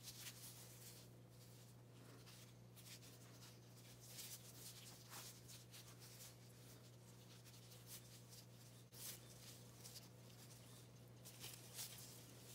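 Faint rustling and crinkling of plastic-gloved hands handling cloth face masks, in short soft scuffs scattered through, over a steady low hum.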